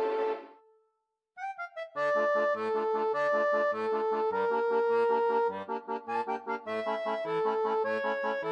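Background music. One tune fades out, then a few short rising notes, and about two seconds in an upbeat instrumental tune starts with a bouncing bass-and-chord beat under a held melody.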